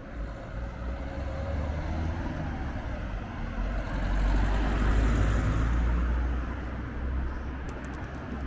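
A car drives past on the road, its engine and tyre noise swelling to a peak about four to five seconds in and then fading away, over a steady low rumble.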